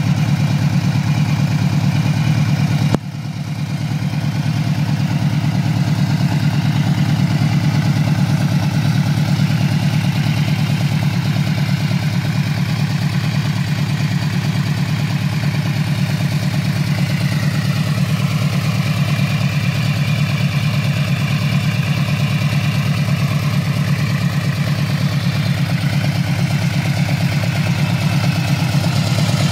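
Yamaha VMAX's V4 engine idling steadily, with a brief drop in level about three seconds in.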